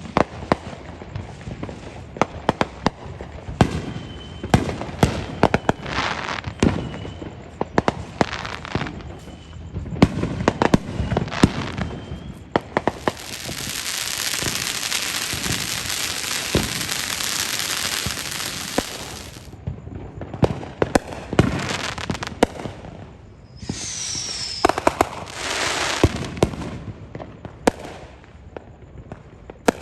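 Backyard consumer fireworks and firecrackers going off: a run of sharp crackling pops, a long hissing spray of several seconds in the middle, and another hiss with a short falling whistle near the end.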